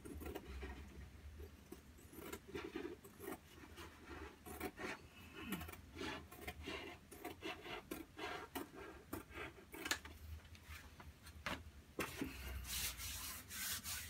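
Scissors snipping through Superfresco textured wallpaper, a run of short irregular cuts with the paper rustling. Near the end comes a longer brushing rub as the trimmed paper is smoothed back against the wall.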